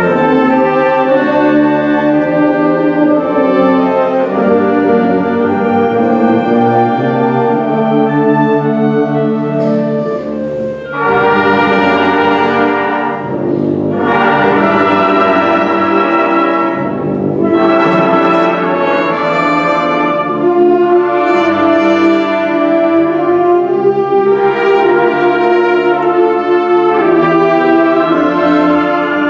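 Symphonic band playing, with the brass to the fore over woodwinds. The sound briefly thins about ten seconds in, then the full band comes back in.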